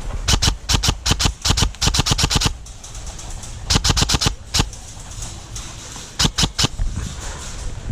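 Airsoft gun firing in three rapid bursts of sharp cracks, about ten shots a second, the first burst about two seconds long and the later two shorter, over low wind rumble on the microphone.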